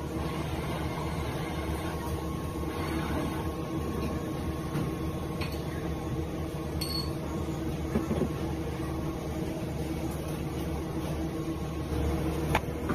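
A steady hum of kitchen machinery, several constant tones over a low rumble, with a faint knock about eight seconds in.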